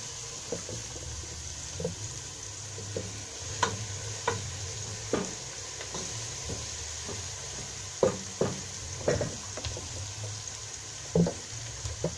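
Chopped onions and garlic frying over low heat in a stainless steel pot, with a steady sizzle. A wooden spoon stirs and scrapes against the pot in short, irregular strokes.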